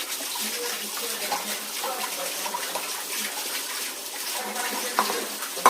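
Running water, like a tap left on, as an even hiss. There is a sharp click about five seconds in and another near the end, with a faint voice underneath.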